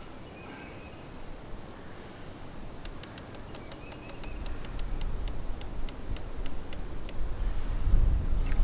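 Elevation turret of a TruGlo turkey scope being dialled, a run of about eighteen crisp, evenly spaced clicks at roughly four a second, lowering the point of impact. A low rumble builds near the end.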